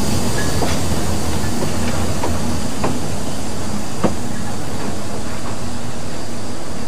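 Vale of Rheidol narrow gauge steam train, carriages and tank locomotive No. 8, rolling past and pulling away at low speed: a steady rumble from the running gear with irregular clicks and knocks from the wheels over rail joints, the sharpest about four seconds in.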